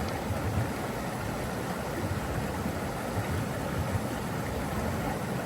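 Flowing water rushing steadily, with a deep low rumble under it.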